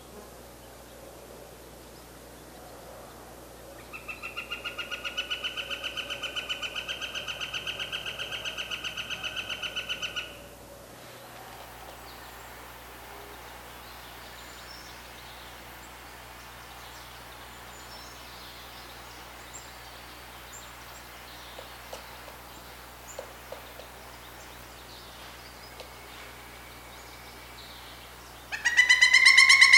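A woodpecker calling: a long, rapid series of even-pitched notes lasting about six seconds starts about four seconds in. A second, louder series begins near the end.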